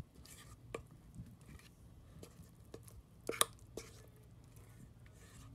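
Thick cream cheese and mango sauce being scraped from a metal bowl onto kunafa: soft squishing with a handful of light clicks of metal against the bowl, the sharpest about three and a half seconds in.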